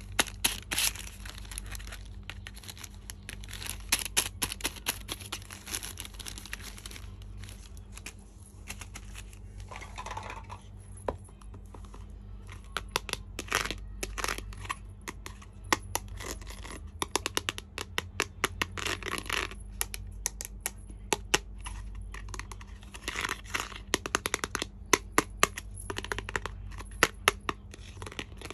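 Toy packaging being handled and opened: crinkling and tearing, with many sharp clicks and taps scattered throughout.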